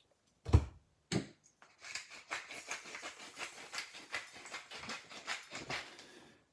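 Two short knocks about half a second and a second in, then a hand pepper grinder twisted over a raw steak: a steady run of quick, small crunching clicks as the peppercorns are cracked, stopping near the end.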